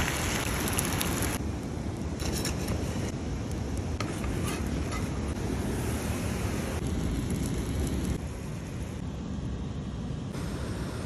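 Wind buffeting the microphone outdoors, a steady low rumble that changes abruptly at edit cuts, with a few faint clicks in the first half.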